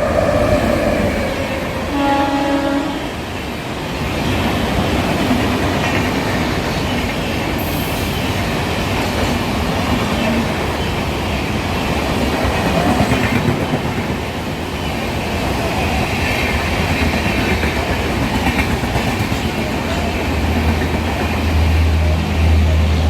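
Vande Bharat Express train running at speed, its horn sounding twice in the first few seconds over steady wheel clatter and rushing noise on the rails. A low hum rises near the end.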